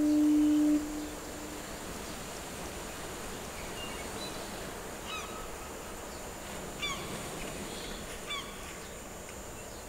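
A sustained low tone dies away about a second in, leaving a steady outdoor ambience with a faint high hiss. Over it come a few short, downward-bending bird calls in the second half.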